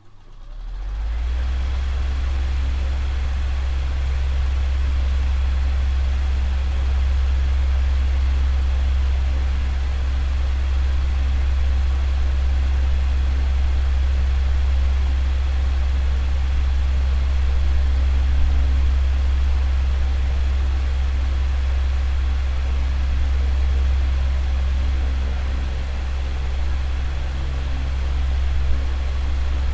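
Electric fan running steadily: a strong, low motor hum with a soft airy hiss above it, rising to full level within the first second.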